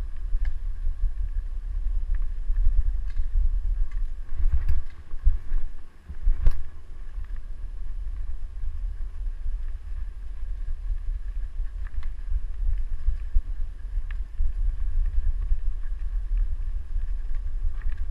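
Deep, steady rumble of wind buffeting a handlebar-mounted camera and wheels rolling over a leaf-covered dirt trail on a dog-drawn rig, with a couple of sharp knocks around the middle.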